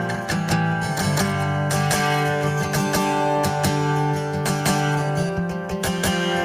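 Acoustic guitar strummed steadily in a folk song, chords ringing between regular strokes.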